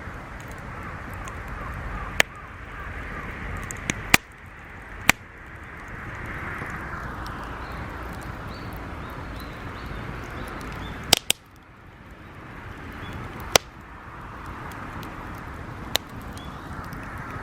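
Scattered sharp wooden cracks and knocks, about eight spaced irregularly, over a steady rushing hiss.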